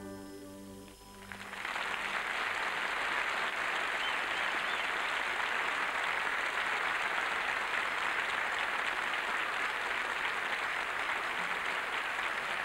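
The song's accompaniment fades out on its last notes, and about a second and a half in a studio audience starts applauding, steady and sustained.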